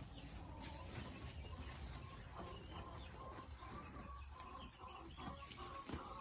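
Chickens clucking and calling softly, many short faint calls.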